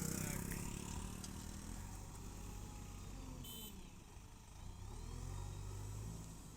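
Backhoe loader's diesel engine running steadily with a low rumble, growing a little louder about five seconds in.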